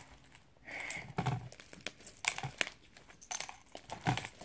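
Fluffy homemade slime packed with mix-ins being squeezed and kneaded by hand, giving soft, irregular small crackles and squishing clicks.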